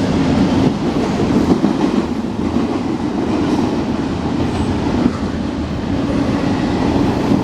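Freight train rolling past close by: a steady loud rumble and clatter of the cars' wheels on the rails, with a low drone running under it.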